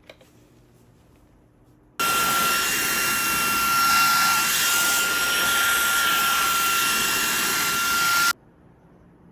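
Cordless stick vacuum cleaner switched on, running for about six seconds with a steady high whine over its rushing motor noise, then switched off abruptly.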